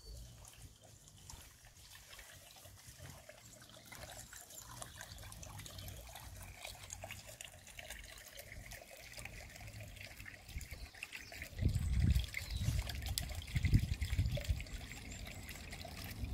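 A faint, steady trickle of water. From about two-thirds of the way in, a run of loud low thumps rises above it.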